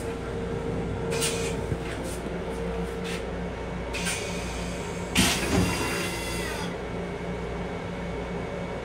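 Long Island Rail Road M7 electric railcar running, a steady low rumble and hum heard inside its small restroom. Short hisses of air come about a second in and at four seconds, and a longer, louder hiss around five seconds in.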